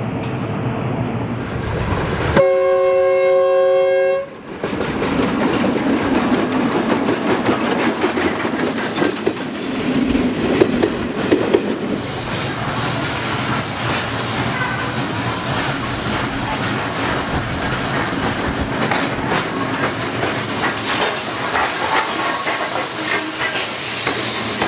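An SY class steam locomotive gives one steady whistle blast of just under two seconds, starting about two seconds in, over the noise of the moving train. From about halfway, passenger coaches pass close by with a rapid clickety-clack of wheels over rail joints.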